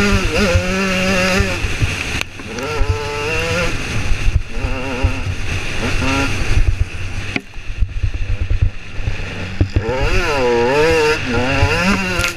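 2009 KTM EXC 125's two-stroke single-cylinder engine revving up and down under throttle on a dirt track, its note climbing and falling again and again. It drops off briefly about two seconds in, again past seven seconds and just before ten seconds, then revs hard once more. Wind buffets the on-board microphone underneath.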